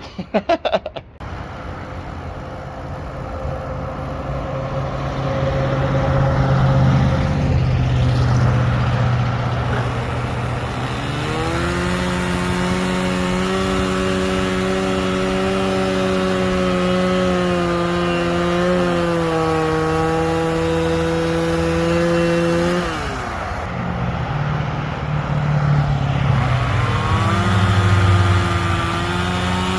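Two-stroke chainsaw engine revving: the pitch climbs to a high steady rev about a third of the way in, holds for roughly ten seconds, drops back, then revs up again near the end.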